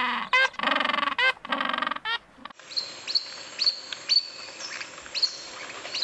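Humboldt penguins braying: the end of a long donkey-like call, then a string of short honking notes. About two and a half seconds in, it cuts to monk parakeets giving short, sharp chirps at an irregular pace of about two a second.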